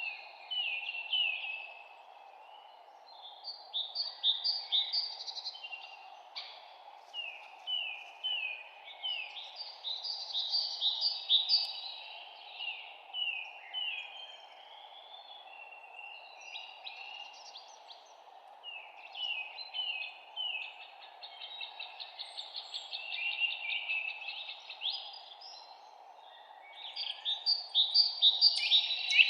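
Songbirds singing: phrases of quick, high chirping notes, each a second or two long, repeating every few seconds and overlapping near the end. A steady hum of background noise runs underneath.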